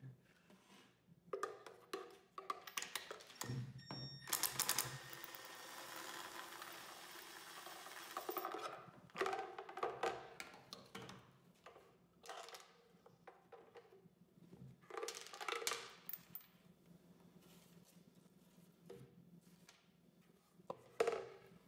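Cordless impact driver on a long extension bar rattling as it backs out a shotgun's buttstock bolt, in one long run of about four seconds that begins about four seconds in. Shorter bursts and knocks of the plastic stock and loose parts on the table follow.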